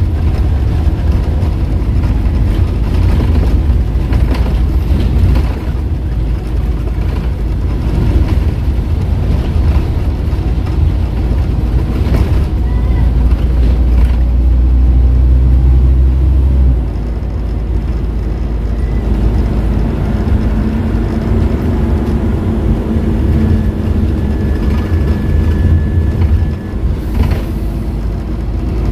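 Scania N230UD double-decker bus heard from on board while it drives: a deep, steady drone from its five-cylinder diesel and ZF automatic gearbox. The drone eases and drops back just over halfway through, then builds again as the bus pulls on.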